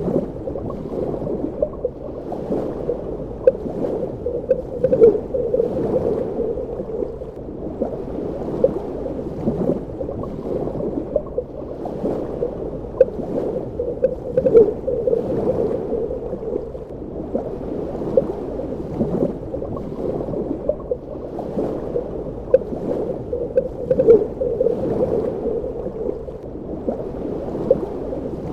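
Underwater ambience: a steady muffled rush of water heard underwater, dotted with many small pops and gurgles, swelling in surges about every nine to ten seconds.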